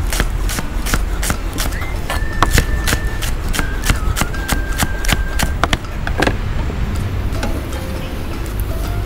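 Chef's knife chopping leeks on a cutting board: rapid, steady chops, about four or five a second, which stop about six seconds in.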